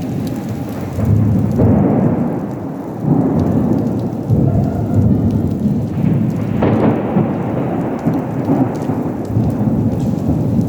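Heavy rain pouring down: a dense, steady rush with repeated low, rumbling swells.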